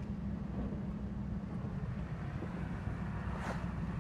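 Steady low rumble of a car's engine and tyres on a wet road, heard inside the cabin, with a brief swish about three and a half seconds in.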